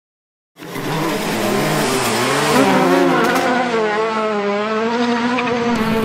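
Racing car engine revving with tyres squealing, starting about half a second in, its pitch wavering up and down.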